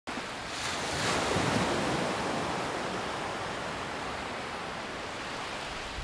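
Ocean waves breaking and washing in: a surge of surf builds about half a second in, is loudest around a second and a half, then slowly dies away, with wind in the background.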